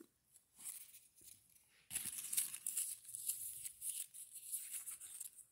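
Faint rustling of paper slips being handled, starting about two seconds in.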